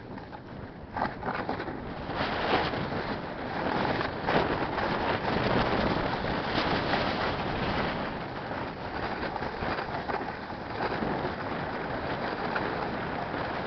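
Snowboard sliding and scraping over snow as the rider carves downhill, with wind rushing over the microphone; the noise swells about a second in and stays rough and uneven.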